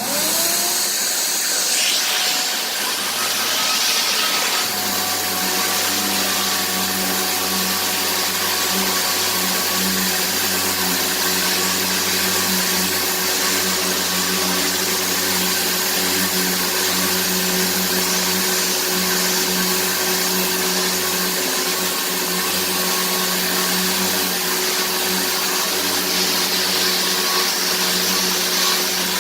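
Electric power sander switched on, spinning up, then running steadily with a whine over a hiss as it sands the piano's wood veneer.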